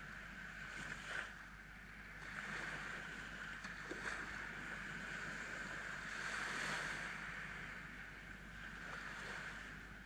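Small sea waves breaking and washing up a sandy beach: a steady wash of surf that swells and eases, loudest about two-thirds of the way through.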